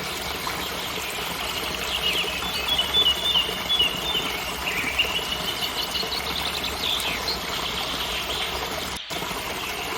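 Waterfall rushing steadily, with small birds chirping, trilling and whistling over it, busiest between about two and six seconds in. The sound cuts out for a split second about nine seconds in.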